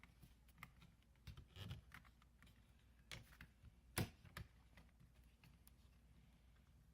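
Faint scattered clicks and taps of a screwdriver and screws working at a Nest thermostat base being fastened to the wall, with the loudest knock about four seconds in.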